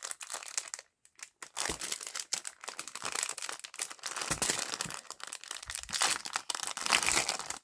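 Packaging crinkling and rustling in dense irregular crackles as it is handled and opened, after a brief quiet moment at the start.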